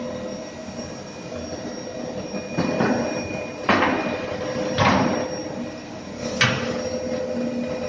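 Steady electrical buzz with a thin high whine, typical of an AC TIG welding arc on aluminum, broken four times by sudden noisy bursts that die away within about half a second.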